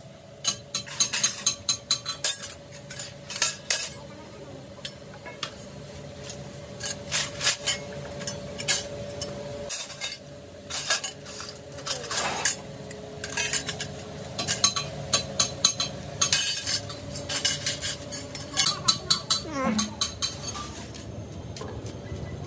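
Steel brick trowels clinking and clattering against each other and a metal sheet in quick clusters of sharp strikes as they are handled and dipped in a tub of black coating, over a faint steady hum.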